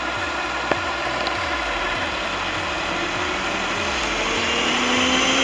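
Yeedi Vac Max robot vacuum-mop running just after a restart: a steady mechanical whir with a fast, even ticking rhythm and one click about three quarters of a second in. From about halfway its motor tone slowly rises in pitch.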